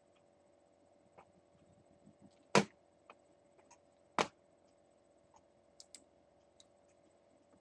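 Faint steady hum of room tone, broken by two sharp clicks about a second and a half apart and a few fainter ticks.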